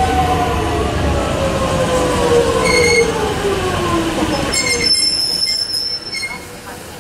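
X'Trapolis electric train moving along the platform as it slows to a stop, its motor whine falling steadily in pitch over a rumble of wheels. There are short high-pitched wheel squeals about three seconds in and again from about four and a half seconds, and the sound fades near the end.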